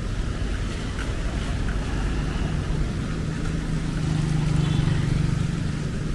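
Rainy city street: a steady rush of rain and traffic noise. A vehicle engine's low hum swells in the middle and eases off near the end.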